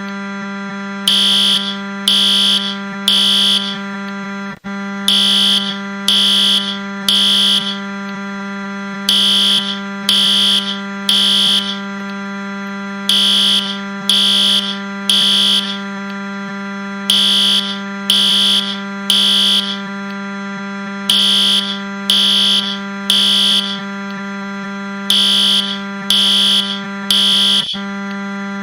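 A fire alarm beeping high-pitched in the temporal-three pattern, three beeps about a second apart then a pause, repeating every four seconds, over the steady low buzz of a Wii console's crash sound pitched down. The buzz cuts out for an instant about four and a half seconds in and again near the end.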